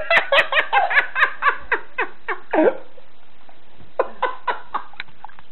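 A person laughing in quick repeated bursts, about four or five laughs a second, for the first two and a half seconds; after a short pause a second, shorter run of laughter comes about four seconds in.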